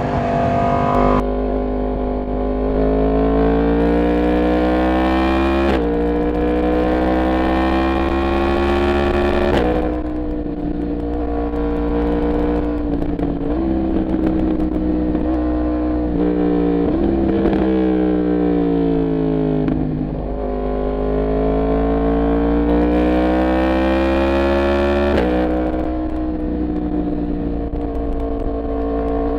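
Yamaha MT-10's crossplane inline-four engine under way on a ride. It pulls up through the gears: the pitch climbs for several seconds, then drops sharply at each upshift, about four times. At one point, a little past halfway, the pitch sinks over a few seconds as the throttle is eased off.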